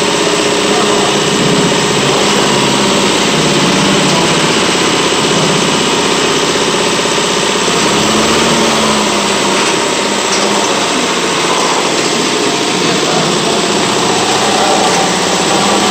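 Hyundai EF Sonata DOHC gasoline engine idling steadily on a training stand.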